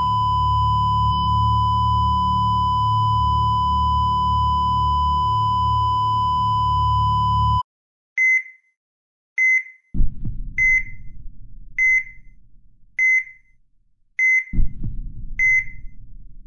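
A continuous flatline alarm tone, one steady high pitch with a low hum beneath it, cuts off abruptly about seven and a half seconds in. The patient monitor's pulse beep then takes over: short high beeps at an even pace, a little more than a second apart, with some low rustling between them.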